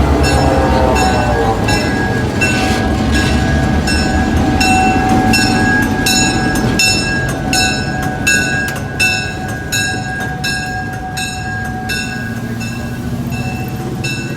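Railroad cars with a low rumble that eases off after the first few seconds, under two steady high tones like a squeal. A regular metallic ringing strikes a little under twice a second throughout.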